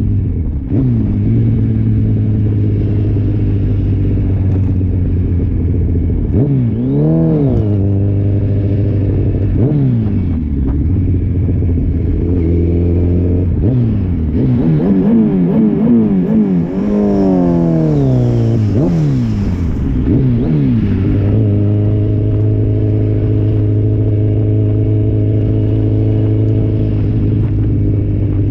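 Inline-four sportbike engine running steadily at cruising revs. Through the middle stretch the revs rise and fall several times as the throttle is opened and closed, quickly up and down in a cluster, then settle back to a steady note for the last several seconds.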